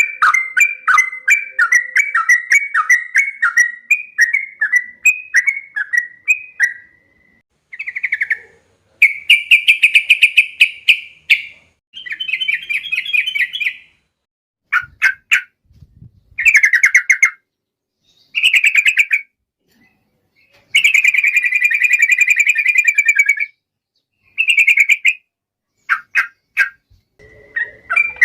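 Sooty-headed bulbul singing: a quick run of chirps, then a string of fast rattling trills (the long 'ropel' roll), each lasting up to a couple of seconds with short pauses between them.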